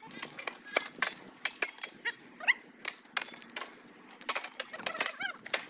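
Steel hand tools and crowbars knocking and prying at the fastenings of a railway track: an irregular run of sharp metallic clinks and knocks.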